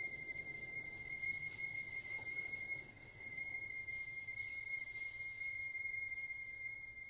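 Electroacoustic ensemble music: a single high, steady tone with a row of even overtones, held and growing quieter near the end.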